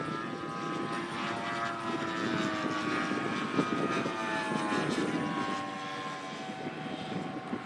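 Engines and propellers of radio-controlled model aircraft, two or more flying together overhead, running steadily as a layered drone whose pitch slowly drifts down as they pass.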